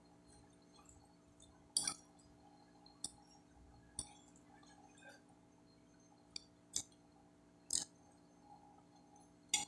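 Metal fork clinking against a glass plate while picking up food: about seven sharp, short clinks, unevenly spaced, over a faint steady hum.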